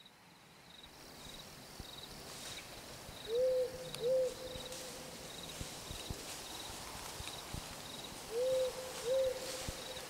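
Night forest ambience fading in: an owl hooting in two pairs of hoots, about five seconds apart, over a faint high cricket chirp repeating steadily.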